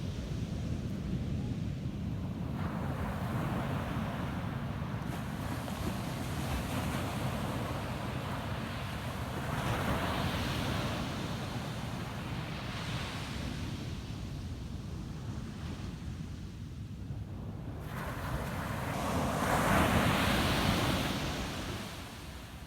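Ocean waves breaking on a sand beach, each wash swelling and fading, the biggest near the end, over a steady low rumble of surf and wind on the microphone.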